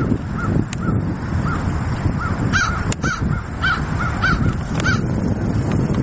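Crickets chirping in an even rhythm, about three short chirps a second, over a steady low rumble.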